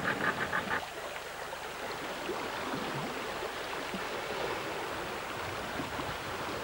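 Steady wash of lake water around a small boat, after a rapid, even ticking that stops about a second in.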